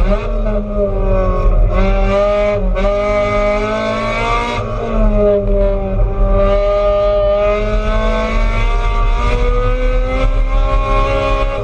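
Race car engine heard from inside the stripped cabin, running hard under racing load. Its pitch climbs and falls as it accelerates and shifts gear, with brief breaks in the note about 2.5 and 4.5 seconds in.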